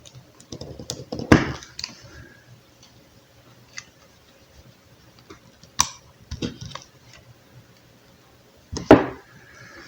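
Irregular clicks and knocks as an extension-cord plug is worked apart by hand. The sharpest knocks come about a second in, near the middle and near the end, with lighter ticks between them.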